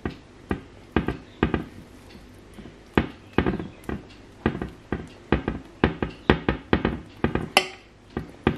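A small spoon tapping and scraping on pizza bases and a baking tray while spreading tomato sauce: a string of irregular sharp clicks and knocks, several a second.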